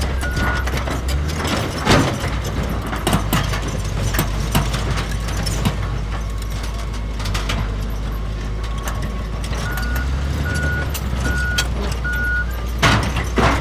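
Bulldozer's diesel engine running with a steady low rumble, under scattered knocks and clanks. Its reversing alarm beeps at the start and again four times in a row near the end.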